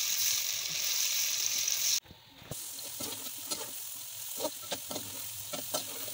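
Onions and tomatoes sizzling loudly in hot oil as a spatula stirs them. About two seconds in it cuts to a quieter hiss of potato sticks frying in oil, with short clicks and scrapes of a perforated metal skimmer against the pan as they are turned.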